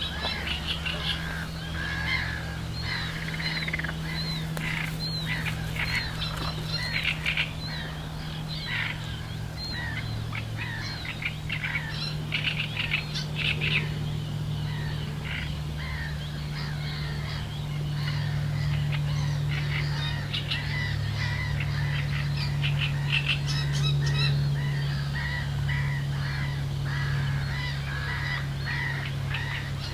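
Wild birds chirping and calling, many short calls overlapping, some honk-like, over a steady low drone.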